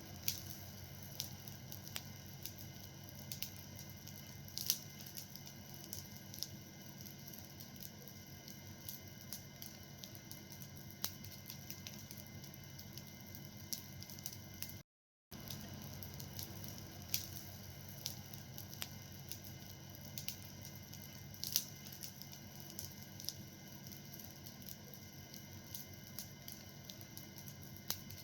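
Fire burning, with sparse, irregular crackles and pops over a steady low hiss. The sound drops out completely for about half a second near the middle.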